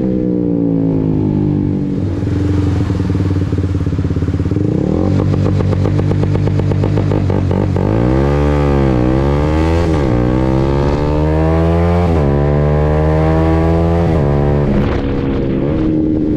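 Honda CBR150R's single-cylinder engine held at high revs with a rapid stutter, typical of a launch-control rev limiter. It then pulls away, the revs dipping and climbing, and drops sharply in pitch at each quickshifted upshift about two seconds apart.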